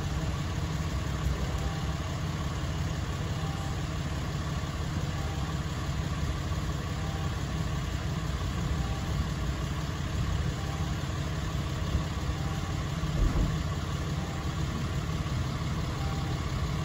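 A vehicle engine idling steadily, a low even hum that does not change.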